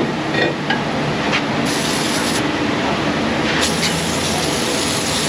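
Aerosol brake cleaner sprayed in bursts onto a new brake rotor, washing off its rust-preventive oil coating. One short burst comes a little under two seconds in, and a longer spray starts about three and a half seconds in.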